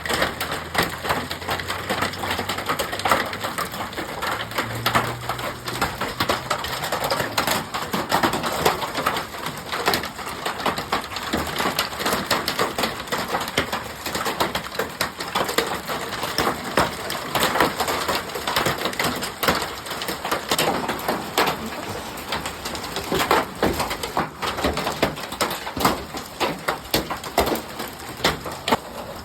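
Hailstones pelting down: a dense, continuous clatter of countless sharp hits.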